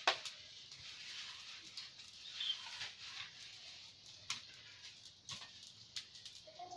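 Small twig-and-wood fire crackling, with scattered sharp pops over a faint hiss.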